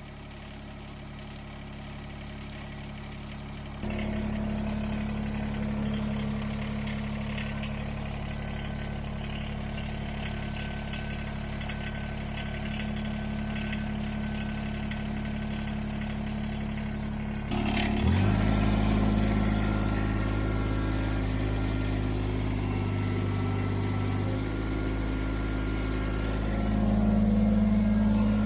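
Kubota BX23s compact tractor's three-cylinder diesel engine running steadily. It gets louder suddenly about 4 seconds in, and its note changes abruptly at about 18 seconds.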